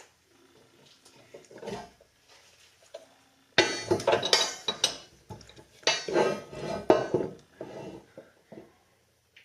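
Metal objects clinking and clattering against one another: a few light clicks at first, then, from about a third of the way in, a busy run of sharp clattering strikes that dies away near the end.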